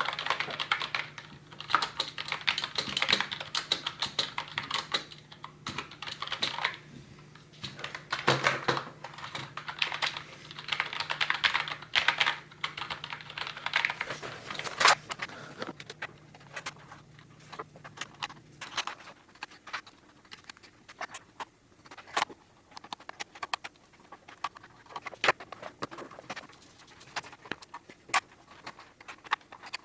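Red Thunder 60% membrane keyboard being typed on: fast, dense runs of keystrokes for the first quarter-minute or so, then slower, scattered single key presses.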